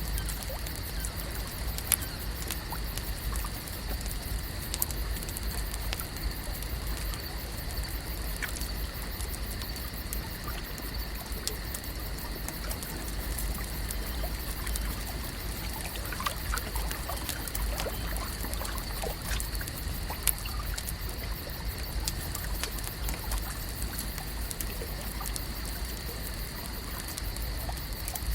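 Lakeside ambience: water trickling and lapping, with a steady high-pitched drone throughout, a few sharp clicks, and faint short chirps about two-thirds of the way in.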